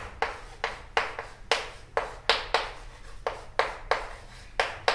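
Chalk writing on a chalkboard: a quick run of short, sharp taps and scrapes, about two to three a second, as a word is written letter by letter.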